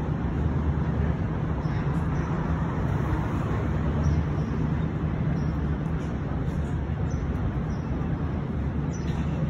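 Steady city street traffic noise, with a low rumble of engines throughout.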